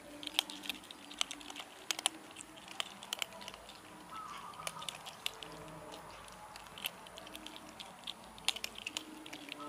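Kittens eating dry kibble: a fast, irregular run of small sharp crunches and clicks as they chew the pellets.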